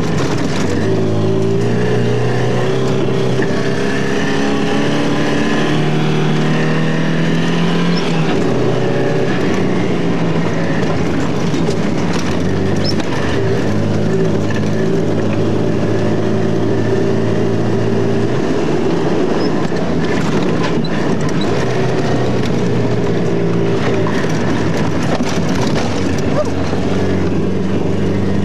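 Alfa Romeo Alfasud's flat-four engine heard from inside the cabin, revving hard under load as the car is driven fast over sand. The engine note climbs and drops with the gear changes, over a constant rush of tyre and road noise and occasional knocks from the bodywork.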